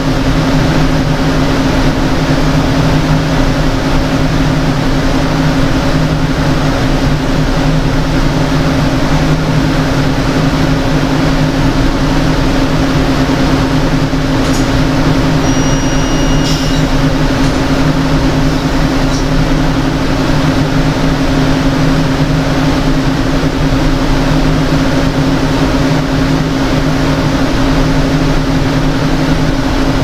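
Steady, loud drone of a francium physics lab's running equipment: a constant machine hum with two low steady tones under an even hiss. A faint short high tone sounds about halfway through, with a few faint clicks around it.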